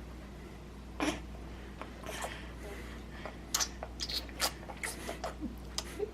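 A baby noisily sucking and smacking on a bottle of warmed milk: a string of short, irregular wet smacks and clicks, starting about a second in.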